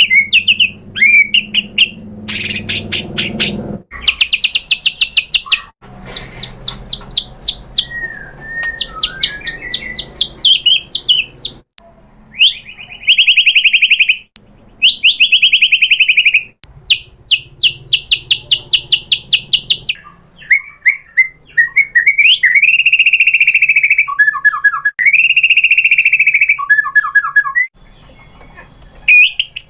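White-rumped shama singing a loud, varied song: fast runs of repeated sharp notes and whistled phrases, one after another with only short pauses between them.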